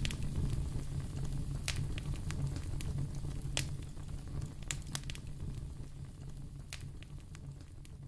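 Fireplace fire crackling: sharp, irregular pops over a steady low rumble, fading gradually.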